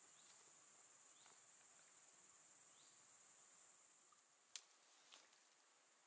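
Faint, steady, high-pitched insect chirring, with two sharp clicks about two-thirds of the way through.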